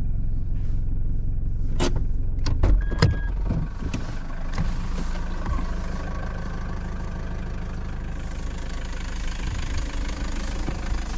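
A vehicle engine running steadily, with several sharp clicks and knocks and a short beep about two to three seconds in.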